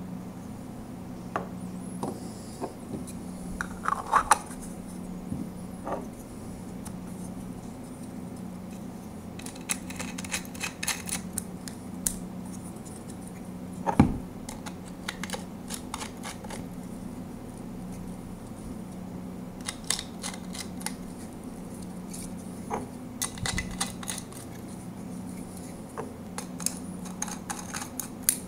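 Hard 3D-printed plastic parts being handled and fitted together: scattered clicks and knocks, with several runs of quick clicking as threaded plastic arms are screwed in, and one sharper knock about halfway. A steady low hum lies underneath.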